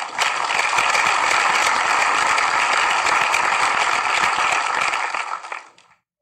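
Dense, steady rattling clatter made of many rapid overlapping clicks. It lasts about six seconds and fades out shortly before the end.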